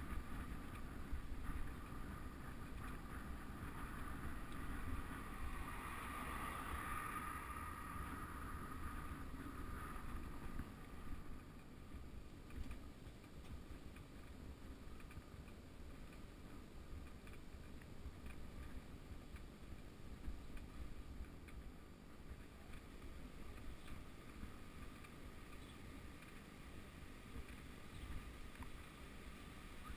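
Wind buffeting the microphone of a camera on a moving road bike, with a low rumble of tyres on the road. It is louder for roughly the first ten seconds, then steadier and quieter.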